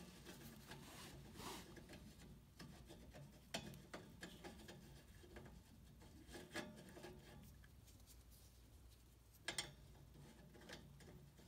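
Faint rubbing of a gloved hand twisting a pipe-doped threaded fitting into a gas valve by hand, with a few light clicks and one sharper click near the end.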